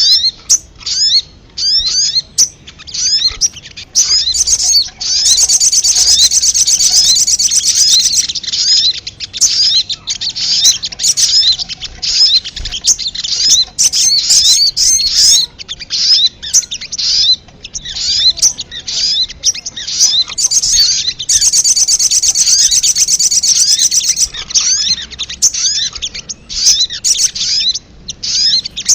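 Little spiderhunter (sogon, sogok ontong) lure calls: a rapid, unbroken series of sharp high chirps, with two stretches of fast buzzy trilling, about five seconds in and again about twenty-one seconds in.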